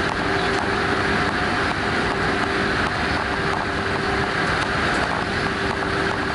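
Class 186 electric locomotive running steadily at speed: an even rumble and rush of running noise with a steady mid-pitched hum from the drive.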